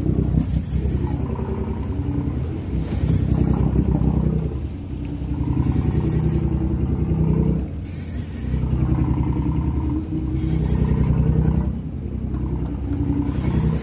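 The fishing boat's engine running steadily, its pitch and loudness rising and falling every few seconds. A short hiss of water comes about every couple of seconds.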